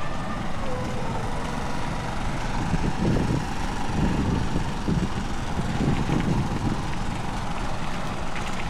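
Vehicle running along a road: a steady engine and road rumble with uneven swells in the middle.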